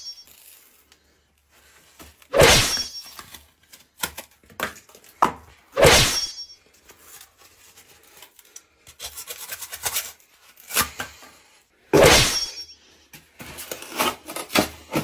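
Three loud, sharp impact sounds about 2.5, 6 and 12 seconds in, with smaller knocks and scuffling between them.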